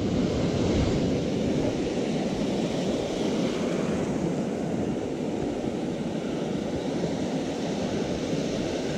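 Ocean surf washing and rushing through shallow water, steady throughout, with wind buffeting the microphone.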